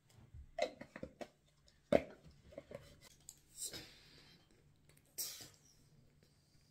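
Handling noises: a few small knocks and clicks in the first second, one sharper click about two seconds in, then two short rustles.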